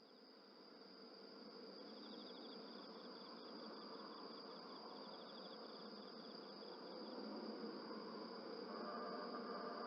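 Insects singing outdoors: one holds a steady high trill, while a second, slightly lower, chirps in rapid even pulses for several seconds in the middle, over a faint background hiss.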